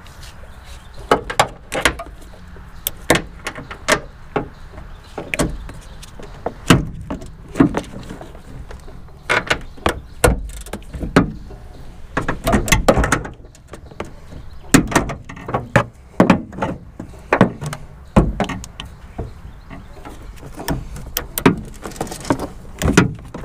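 Hand ratchet and socket working the 14 mm rear strut top-mount nuts, breaking them loose: a string of sharp, irregular clicks and metal knocks.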